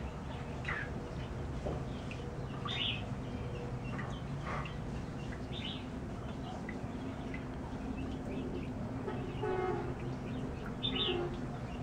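Short bird chirps, scattered and a few seconds apart, over a steady low hum, with a longer pitched call a little after nine seconds in.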